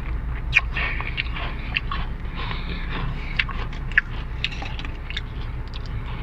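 Chewing and crunching on sweet potato crisps, with sharp crackles from the snack packet being handled. A steady low hum runs underneath.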